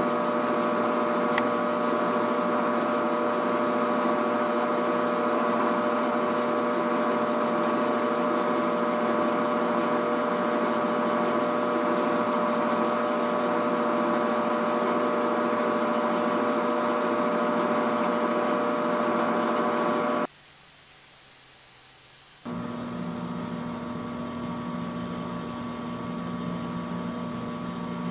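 Grizzly G0750G metal lathe running steadily while a carbide insert turns down a long steel rebar rod, a steady whine of motor and gears over the cutting noise. About twenty seconds in it cuts off suddenly, and a couple of seconds later the lathe is heard again, quieter, still cutting.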